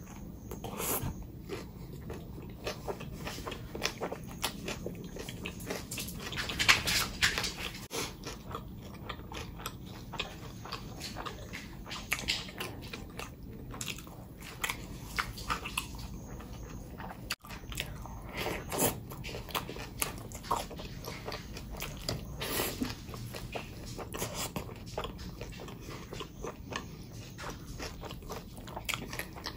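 Close-miked eating: chewing and biting with wet mouth sounds and sharp crunches. The crunching is loudest about seven seconds in.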